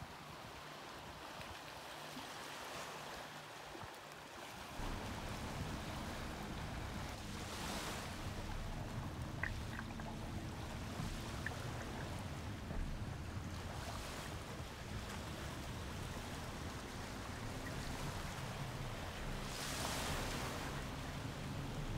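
Water swishing and lapping around a kayak on the move, with a few louder swishes several seconds apart, over a low rumble that sets in about five seconds in.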